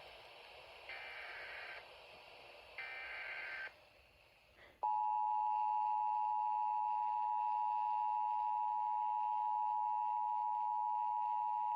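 Emergency Alert System SAME header data bursts, two short buzzy chirps about a second apart over radio static. About five seconds in, the steady two-tone EAS attention signal starts and holds, announcing a new warning.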